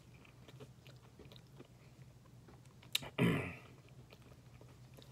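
A man chewing a chewy granola bar with faint, soft wet clicks of the mouth. About three seconds in come one sharp click and a brief, louder throaty breath.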